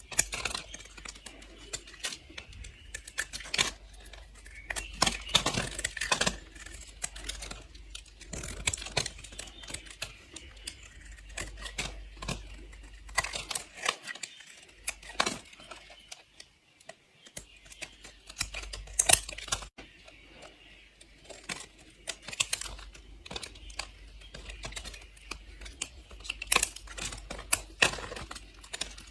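A knife slicing through bars of soap, giving many crisp, crunchy clicks and short scrapes in irregular runs, with a brief lull about halfway through.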